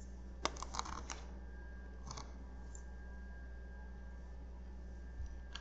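A quick cluster of sharp little clicks about half a second in, then one fainter click about two seconds in, over a steady low electrical hum.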